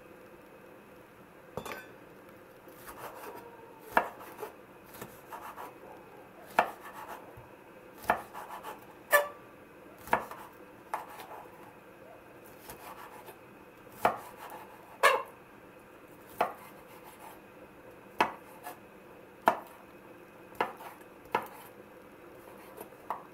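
Kitchen knife chopping sweet bell pepper strips on a wooden cutting board: sharp knocks of the blade on the board, unevenly spaced about a second apart.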